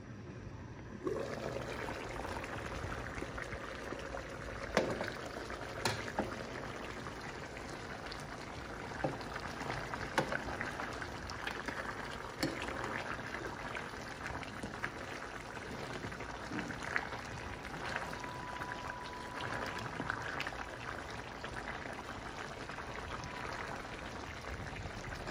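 Chicken curry in thick gravy sizzling and bubbling in a pan, with a metal spoon stirring it and clicking against the pan now and then.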